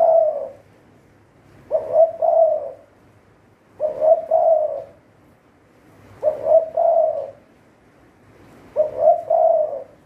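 Spotted dove cooing its repeated phrase, a short note followed by a longer, drawn-out one. The phrase comes about every two and a half seconds, four times.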